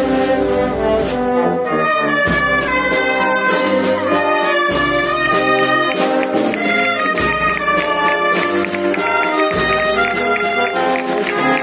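Procession band playing a march, brass to the fore with sousaphone in the bass, and a low beat about every two and a half seconds.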